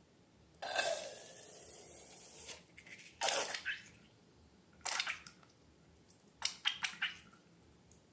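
Wet, sticky handling of slime and balloons: a longer squishing hiss starting about half a second in, then several short squelches and crackles.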